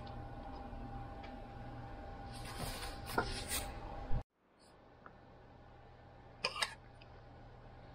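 Faint handling noise from hands working over a cassette deck's tape transport: a few soft rustles and small clicks. A little after four seconds the sound cuts out abruptly and comes back as quieter room tone with a faint steady hum and a brief click or rustle.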